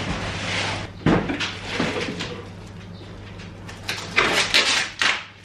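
Wooden kitchen cabinet doors being opened and shut, with a few sharp knocks and clacks, the loudest cluster coming near the end. A steady low hum runs underneath.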